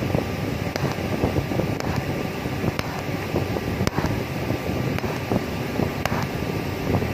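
TIG welding arc on a thin stainless steel pipe joint: a steady crackling hiss with a sharp click about once a second as the weld is laid in short pulses.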